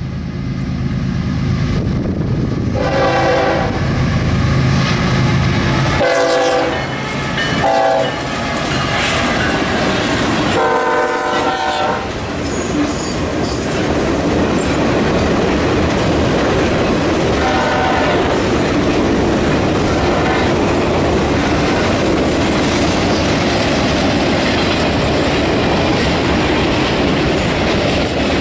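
Diesel locomotive passing while its air horn sounds the grade-crossing signal, long, long, short, long, then one more short blast. The cars then roll by with steady wheel clatter.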